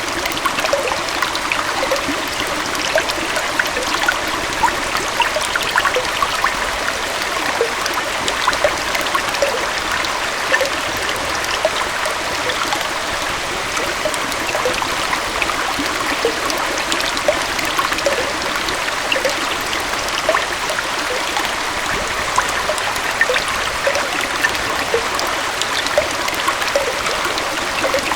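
Small waterfall and stream flowing steadily. The water rushes evenly, with many quick little splashes and gurgles on top.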